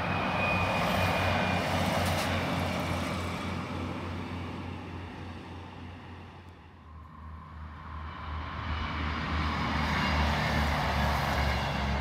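A Class 156 diesel multiple unit passes with a steady low engine drone and rolling noise that fade out over the first half. Then, from about eight seconds in, a Class 158 diesel multiple unit approaches, its drone growing louder.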